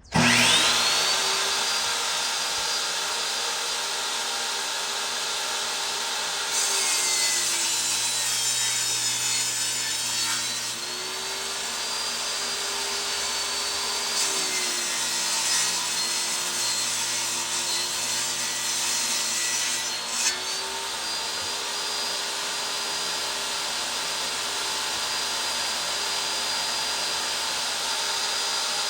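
Electric saw starting up and ripping boards lengthwise. Its motor whine sags in pitch under load while the blade is in the wood, during two long cuts from about seven seconds and about fourteen seconds in, and otherwise runs freely at full speed.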